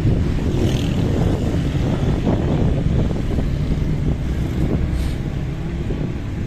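Road traffic on a busy city boulevard: motor vehicles passing in a steady low rumble.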